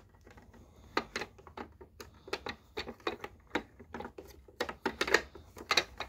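A hammer tapping lightly and irregularly, about a dozen small knocks, on the plastic wheel-height adjuster of a Dirt Devil Dynamite Plus vacuum, trying to knock it back into place.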